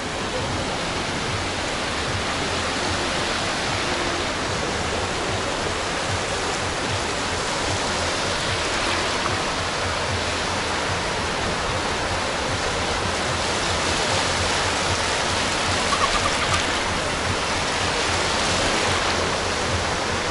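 Steady, unbroken wash of sea surf on a beach.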